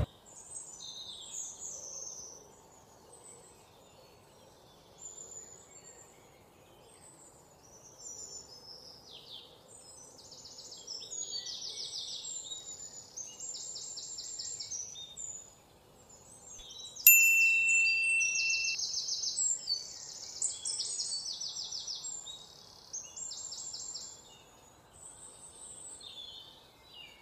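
Small birds chirping and trilling in short, repeated phrases. A single bright ringing tone, like a chime, sounds a little past halfway and fades after about a second and a half.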